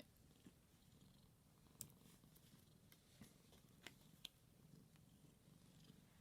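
Domestic cat purring faintly and steadily, with a few soft clicks over it.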